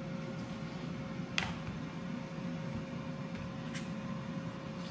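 Philips air fryer running with a steady fan hum and a faint steady tone. A knife knocks sharply once on a wooden cutting board about a second and a half in, and more lightly near the end, while it cuts crescent-roll dough.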